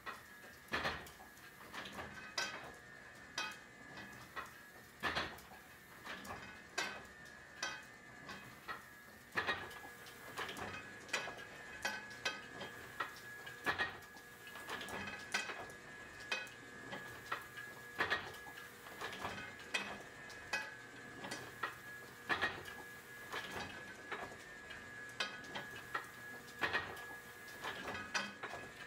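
Platen letterpress running, its metal parts clacking in a repeating cycle about every one to one and a half seconds, with a thin steady whine underneath.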